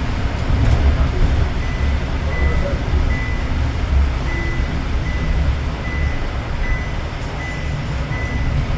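Inside a city bus: a steady low engine and road rumble, with a short high beep repeating about twice a second through most of the stretch.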